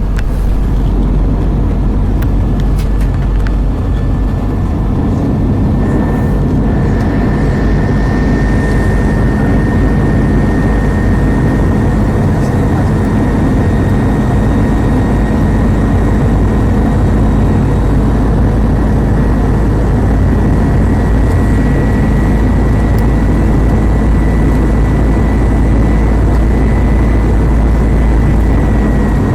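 Airbus A320 jet engines in flight, heard inside the passenger cabin: a loud, steady, deep rush of engine and air noise. Over it runs a thin whine that slowly creeps up in pitch, then dips slightly near the end.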